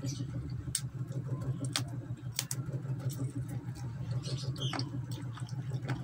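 Close-up eating sounds of a person chewing chicken adobo picked off the bone, with a handful of short wet mouth clicks. A steady low hum lies under it.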